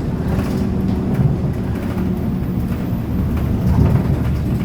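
City bus running under way, heard from inside the passenger cabin: a steady low engine and road rumble.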